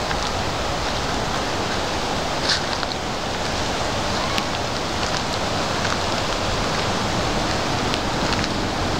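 Steady rushing of wind through the pines and over the microphone, with a few short light clicks, the most distinct about two and a half seconds in.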